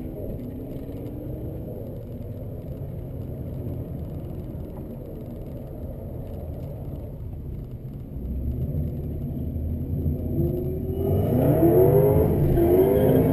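Car engine idling steadily, heard from inside the cabin, growing louder about eight seconds in. Near the end an engine is revved several times in quick rising sweeps.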